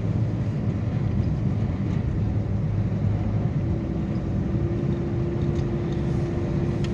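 Steady road and engine rumble of a car driving on a snow-covered highway, heard from inside the cabin. A faint steady tone joins about halfway through.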